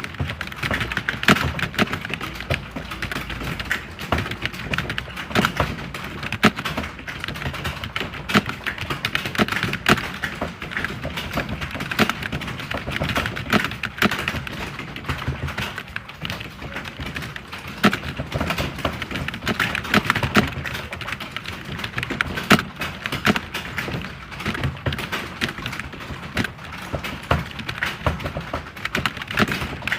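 Computer keyboard being typed on continuously: a fast, dense run of key clicks with uneven spacing.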